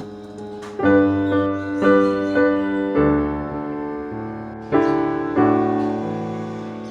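Background piano music: slow, gentle notes and chords played in sequence.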